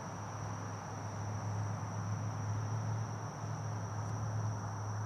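Insects trilling steadily in one continuous high tone, over a low steady hum.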